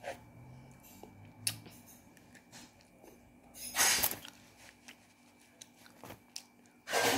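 Chewing and biting a hard white chocolate bar, with a few small sharp clicks and two louder bursts, about four seconds in and near the end.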